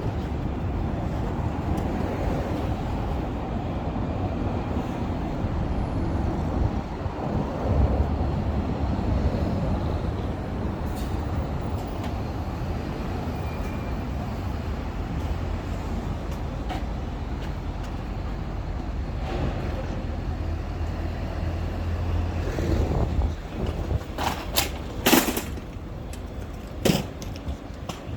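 Road traffic on a city street: a steady low rumble of passing vehicles, with a few sharp clicks and a short hiss near the end.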